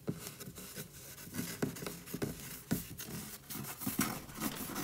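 Irregular scratching, tapping and scraping, as of something moving about inside a wall.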